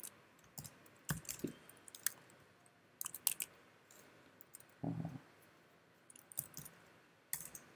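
Computer keyboard keys clicking in short irregular runs as code is typed, with a duller thump about five seconds in.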